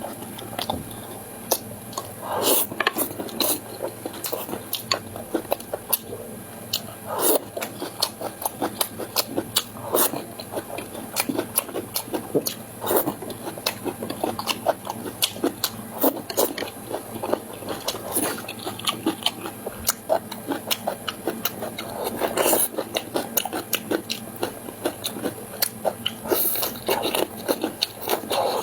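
A person chewing and biting food close to the microphone, with many short, irregular clicks and smacks.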